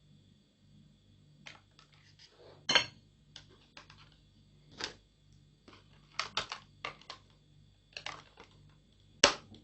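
Thin plastic soft-drink bottle pieces being handled and fitted together: a string of irregular light clicks and taps, the sharpest about a third of the way in and near the end.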